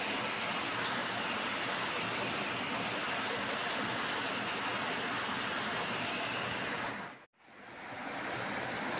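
Heavy rain pouring steadily, a dense even hiss. It drops out abruptly for a moment about seven seconds in, then comes back as before.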